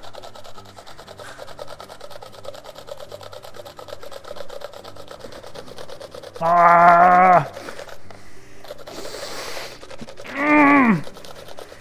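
Cucumber grated on a handheld box grater: a steady, fast rasping of strokes. About six seconds in, a voice holds one sung note for about a second. A short hiss follows, then a falling vocal "ooh" near the end.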